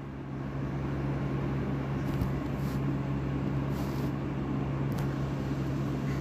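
Steady low hum with a faint hiss over it, and a few faint brief rustles scattered through.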